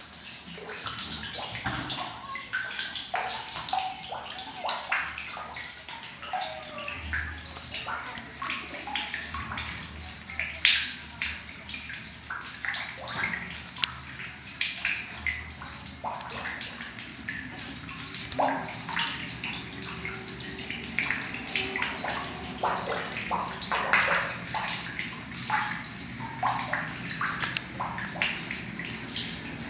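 Spring water trickling and dripping into a stone well, with many small irregular splashes over a steady running-water hiss.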